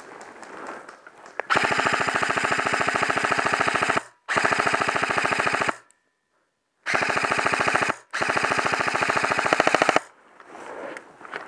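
Airsoft rifle firing on full auto: four long bursts of very rapid, even shots. The sound cuts out completely for about a second between the second and third bursts.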